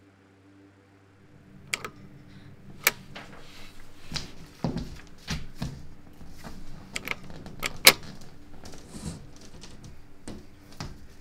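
A low steady hum cuts out about a second in. Then come irregular sharp clicks, taps and a few dull knocks of things being handled, loudest just under eight seconds in.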